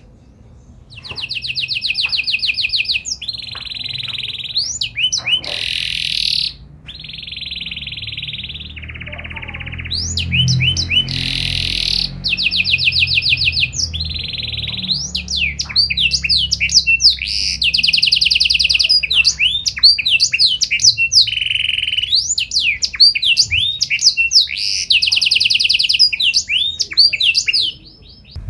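Domestic canary singing a long song of fast trills and rolls, with quick rising whistled notes between them. It starts about a second in and stops shortly before the end.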